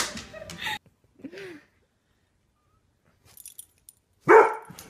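Near the end a dog gives a loud, pitched bark-like vocal sound. A little earlier there is a faint metallic jingle.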